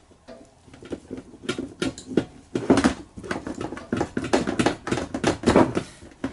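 Carburettor parts clicking and knocking against each other and against a stainless-steel parts tray as they are handled during disassembly. It is a quick, irregular run of small knocks, loudest about three seconds in and again near the end.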